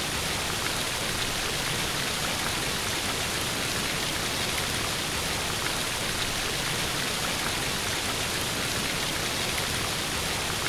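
Steady rush of falling water, a waterfall sound effect: an even, unbroken hiss that does not change.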